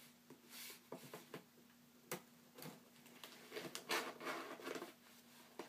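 A small letter opener picking and scraping at a package: scattered light clicks and scratches, with a longer run of scratching from about three and a half to five seconds in.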